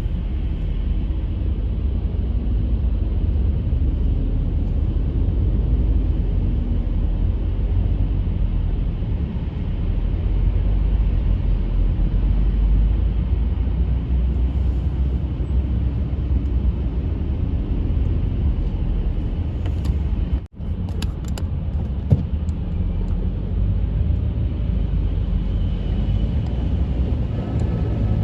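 Steady low road and engine rumble heard from inside a car driving in slow traffic. The sound drops out for an instant about twenty seconds in, followed by a few faint clicks.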